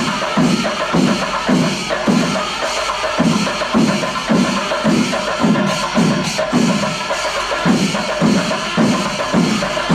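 Panchari melam: a large Kerala temple percussion ensemble of chenda drums and elathalam hand cymbals playing loudly, with a deep drum beat pulsing steadily about twice a second under a dense, bright din of drumming and cymbals.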